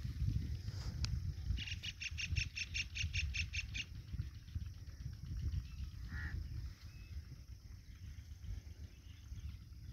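A bird calling: a rapid run of sharp, evenly spaced high notes, about six a second, for two seconds, then a short rising call and another brief call a few seconds later, over a low steady rumble.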